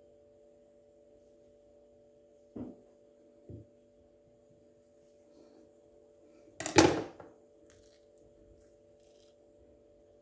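Kitchen knife and halved avocado being handled while the pit is removed: two soft thuds, then a single loud knock after the halfway point, followed by a few light clicks, over a faint steady hum.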